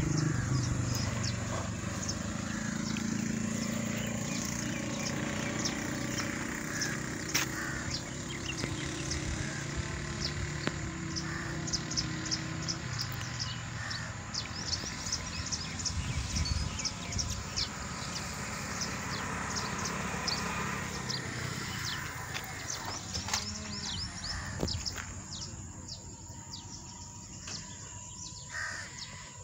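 Outdoor ambience by a canal: small birds chirping again and again over a steady low rumble and a high, even insect drone. The chirping thins out and the whole thing gets quieter over the last few seconds.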